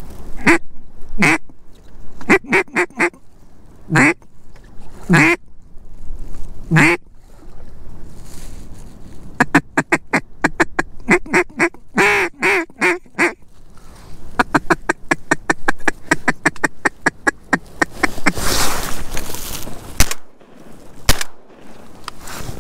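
Mallard duck call blown in single drawn-out quacks, short quack runs and a fast feeding chatter, then two shotgun shots about a second apart near the end. The first shot misses; the second drops the mallard drake that fills the limit.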